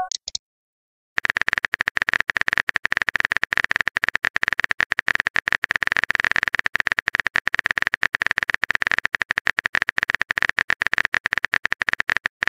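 Rapid typing sound effect from a texting-story app: a dense, irregular stream of sharp clicks that starts about a second in and keeps going. The last of a message-notification chime is heard at the very start.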